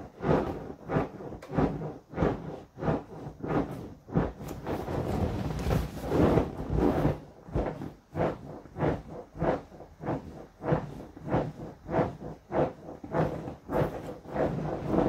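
Inflatable vinyl rocking horse squeaking and rubbing under a rider bouncing on it, about two bounces a second, with a smoother stretch of rubbing around the middle.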